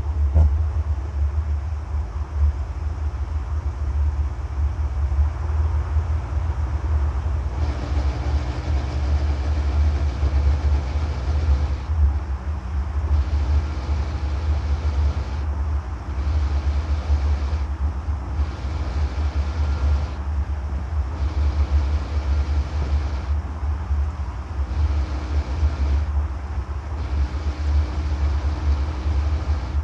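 Ford F550 driving, with a heavy steady low drone from the drivetrain. From about eight seconds in, a fainter tone comes and goes over it. The owner calls this noise horrible; it appears at 65–70 mph and remained after the Dana S130 differential was rebuilt with new gears and bearings.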